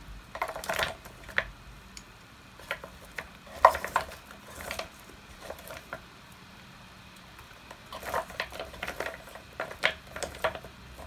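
Wax crayons clattering and clicking against each other and the wooden box as hands rummage through it, in irregular bursts of rattling, the sharpest about four seconds in.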